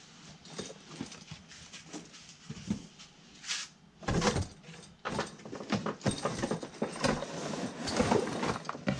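A padded fabric tackle backpack being handled and lowered into a cardboard box, with the box flaps pushed open: an irregular string of cardboard scrapes, knocks and fabric rustles, getting busier and louder about four seconds in.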